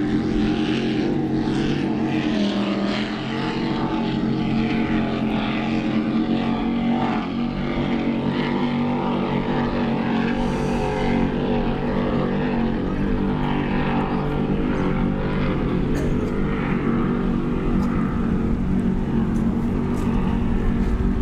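Offshore powerboat racing engines running at speed: a steady drone made of several held tones that barely changes in pitch or loudness.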